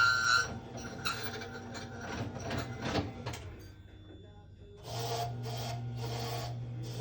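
Key-cutting machine at work. Irregular scraping and clicks come first; then, about five seconds in, the motor starts a steady hum while the cutter grinds a key blank in several rasping passes.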